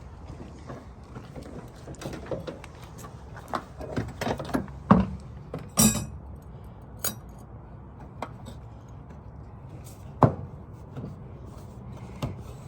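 Scattered light clicks and knocks over a low steady background, with a few sharper knocks about five, six, seven and ten seconds in.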